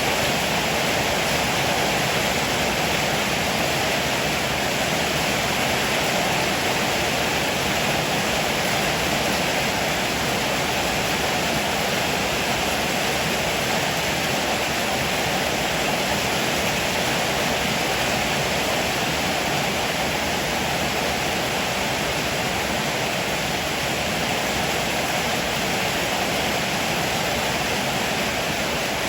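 Heavy rain pouring steadily, an even hiss with no thunder.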